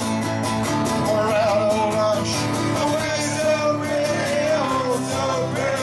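A man singing live to his own strummed acoustic guitar: a wavering sung melody over steadily strummed chords.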